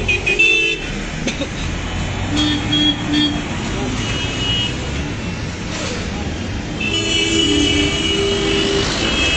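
Street traffic with vehicle horns honking: three short toots about two and a half seconds in and a longer held honk near the end, over a steady rumble of engines and road noise.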